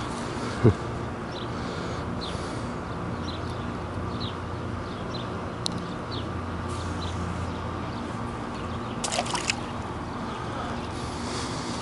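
Small water splashes and handling sounds as a small bluegill is taken off the hook and let go back into the pond. A sharp knock comes about a second in, and a few clicks come near the end. Short high chirps recur throughout.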